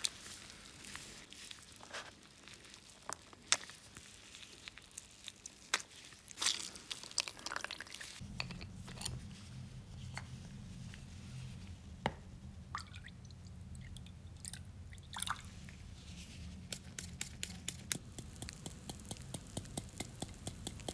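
A lemon squeezed by gloved hands, its juice dripping through a paper filter into a plastic bucket, with scattered drips, squelches and small clicks. A steady low hum comes in about eight seconds in, and near the end the foaming liquid in the bucket fizzes with a quick run of small pops.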